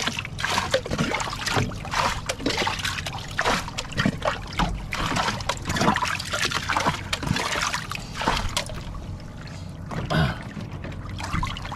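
Water splashing in a small boat's fish well as live fish thrash and a hand moves among them, in quick irregular splashes that ease off about eight seconds in, with a few more near the end.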